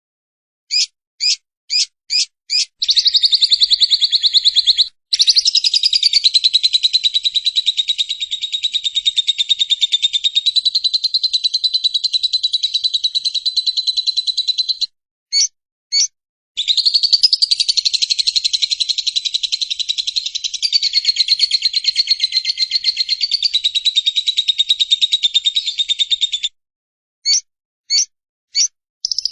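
Lovebird 'ngekek': a long, rapid chattering trill held for about twelve seconds, then after a short break a second one of about ten seconds, with single short chirps before, between and after them.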